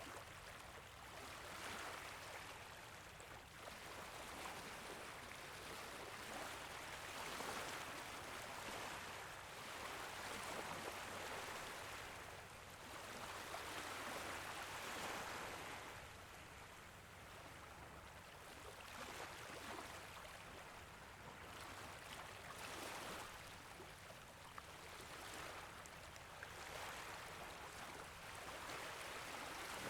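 Small waves gently lapping at a beach, a soft wash that swells and fades every few seconds.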